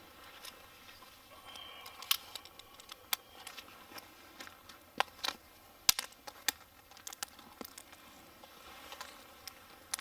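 Irregular sharp snaps and cracks of small branches being broken and handled, several loud ones scattered among fainter clicks.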